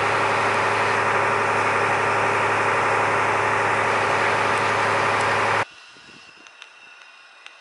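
A small car ferry's engine running steadily, heard on board, with a steady low hum under it. It stops suddenly about five and a half seconds in, leaving quiet open air with a few faint sharp ticks.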